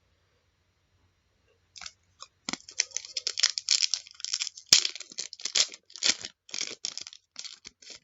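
A trading-card pack wrapper being torn open and crinkled: a dense run of sharp tearing and crackling noises starting about two seconds in, with one sharp click just before the middle.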